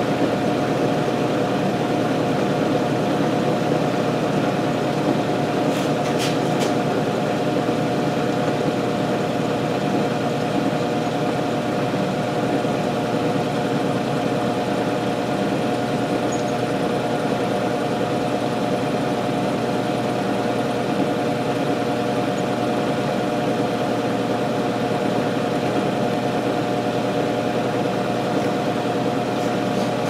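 Milling machine running steadily as its end mill takes a light cut into a metal mold block, the work turned on a rotary table to cut a lobe; an even motor and spindle hum, with a couple of faint clicks about six seconds in.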